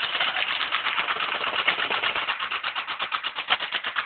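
Airsoft electric gun (AEG) firing full-auto: a rapid, steady stream of shots, many per second.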